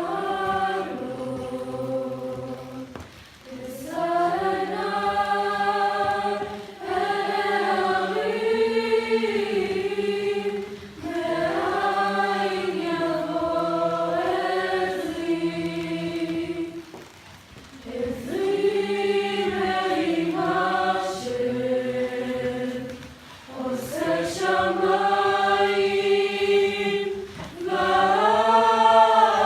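A youth choir singing a song in sustained phrases of a few seconds each, with short breaks between phrases.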